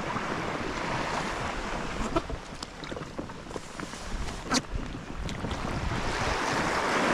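Sea water sloshing and lapping against a kayak's hull, with wind buffeting the microphone. A few small clicks and one sharper knock about four and a half seconds in, and the water wash swells near the end.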